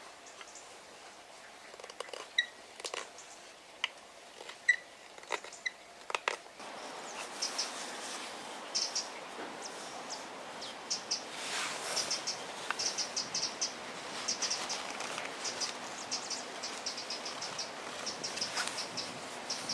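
Knife carving dried ash wood. A few scattered taps and clicks are followed, about a third of the way in, by a run of short scraping shaving strokes, about two or three a second.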